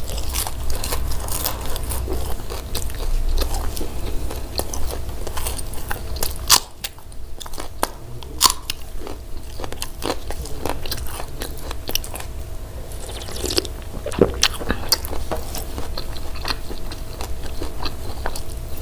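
Crunchy bites and chewing of crispy hawawshi, Egyptian meat-stuffed baked flatbread: a steady run of crackly crunches, with one sharp, loud crunch about six and a half seconds in and a brief lull after it.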